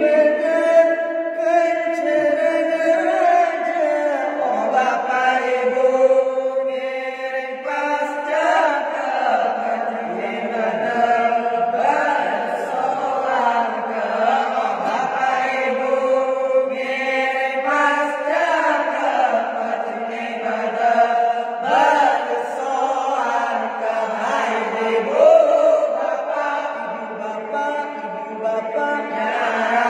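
Men's voices chanting an unaccompanied Islamic devotional song, led by one singer on a microphone, in long phrases of held notes with sliding, ornamented pitch.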